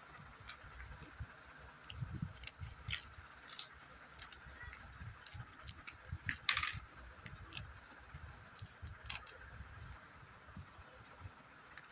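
Light plastic handling noises: scattered clicks, taps and crinkles from the plastic halves of Kinder Joy eggs and their foil-and-plastic wrappers, with a spoon tapping and scraping in a plastic half. One louder crackle comes about six and a half seconds in.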